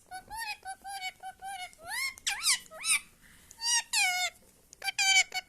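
Pet parrot calling and talking in high, squawky pitched syllables: a quick string of short notes, then swooping rising-and-falling calls, then longer held calls near the end.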